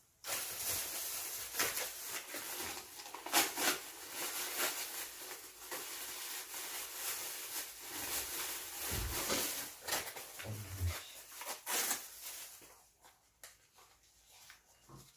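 Packaging rustling and crinkling as bungeoppang pastries are handled, with a couple of soft thumps about nine and eleven seconds in; the rustling dies down near the end.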